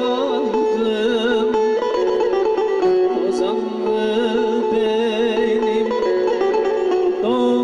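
Bağlama (long-necked Turkish saz) played through a PA in a Turkish folk tune, quick plucked notes over a steady drone, with a man's voice singing a wavering melody over it.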